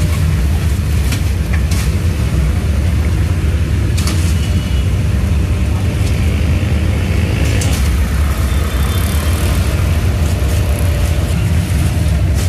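A steady low rumble, like a running engine or traffic, with scattered light clicks and rustles over it.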